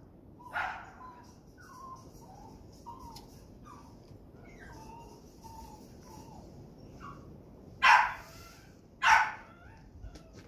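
Small dog barking at a deer: one bark about half a second in and two loud barks near the end, about a second apart, with faint short calls in between.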